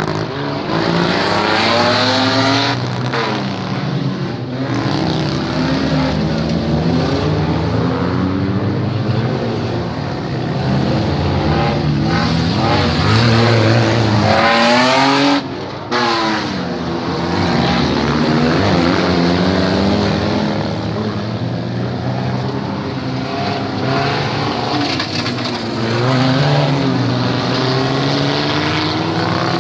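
Several demolition derby cars' engines running and revving over one another, their pitch rising and falling as they accelerate and back off. About halfway through, one engine revs hard, rising steeply in pitch.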